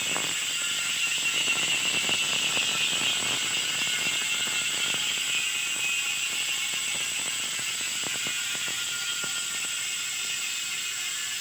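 Six-pawl freehub of a Twitter Storm 2.0 bicycle hub spinning freely, giving a fast, continuous ratcheting buzz of pawl clicks that grows slightly quieter toward the end.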